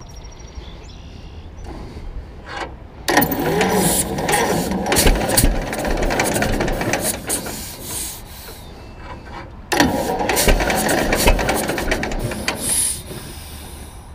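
The John Deere AR's two-cylinder engine being cranked over by its starter with the compression petcocks open: two long spells of rapid, rattling cranking with a short pause between, without the engine catching yet.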